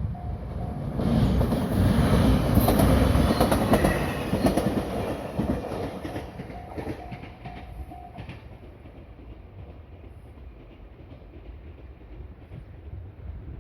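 A train passing over a level crossing with wheels clacking on the rail joints, loudest a few seconds in and then fading away. The crossing's warning bell rings steadily at the start and again under the fading train, stopping about eight seconds in.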